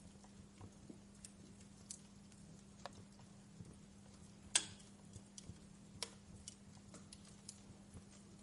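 Wood fire crackling in a fireplace: irregular sharp pops and ticks, the loudest about halfway through, over a faint steady low hum.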